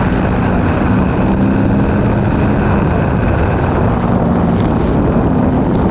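Aprilia Tuono V4's 1100 cc V4 engine running at a steady highway speed, heard from the rider's seat under heavy wind rush over the onboard microphone.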